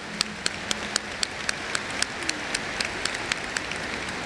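Large audience applauding, with a few close claps standing out at a steady beat of about four a second.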